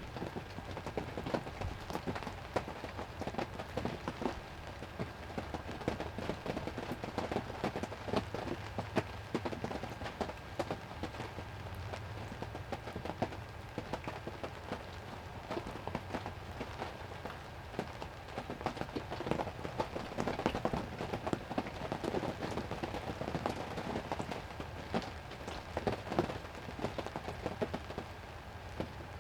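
Heavy rain falling steadily, a dense run of small drop strikes.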